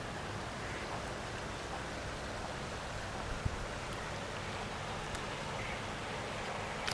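Steady rush of a small creek's flowing water, with a single low thump about three and a half seconds in.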